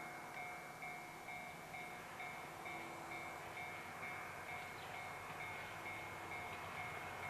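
Railway level-crossing warning bell ringing in an even rhythm, about two strokes a second. Beneath it is the low rumble of an approaching DF200 diesel-electric locomotive hauling a freight train, growing toward the end.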